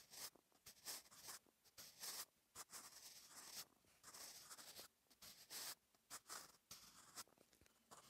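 Staedtler Mars Lumograph Jumbo 8B soft graphite pencil scratching quietly across notebook paper while writing Korean cursive letters: a run of short strokes, each under a second, with brief pauses between them.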